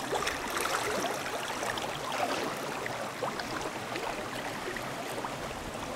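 River water running and gurgling, with many small irregular splashes and bubbling flickers.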